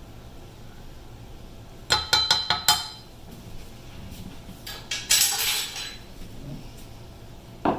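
A metal measuring spoon clinking quickly about six times against a stainless steel saucepan, knocking the spice out, about two seconds in. About three seconds later comes a brief scraping rustle, and a single small click near the end.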